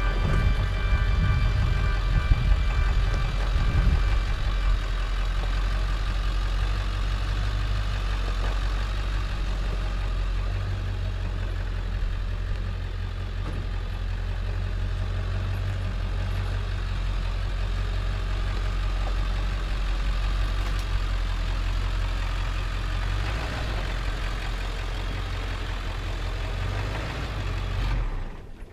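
Old pickup truck's engine running steadily at low speed as it is driven on a rough road. It cuts off sharply near the end.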